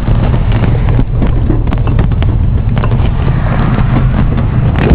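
A vehicle's engine running steadily, with a few light knocks and rattles over it.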